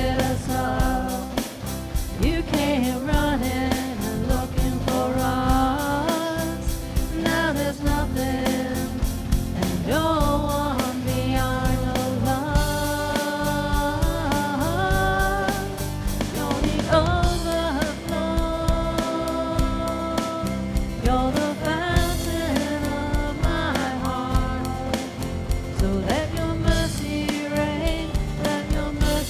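Live praise band playing a contemporary worship song: voices singing over band instruments with a steady beat.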